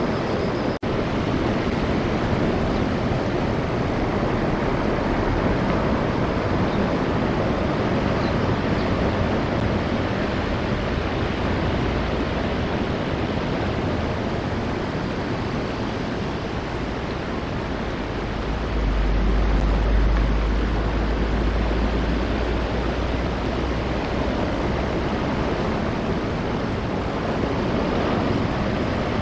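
Steady wind and surf noise on an outdoor camera microphone, with a low rumble swelling for about two seconds about two-thirds of the way through.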